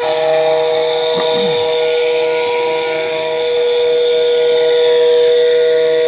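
Steam whistle blown on live steam from a small vertical boiler: one long, steady blast of two close tones with a hiss of steam over them.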